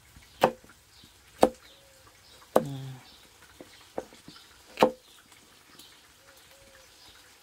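Chef's knife chopping zucchini on a wooden cutting board: about six sharp knocks of the blade striking the board, at an uneven pace.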